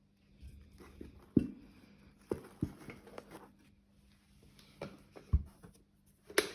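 Handling noise: a scattered series of light knocks and clicks with rustling in between, over a steady low hum.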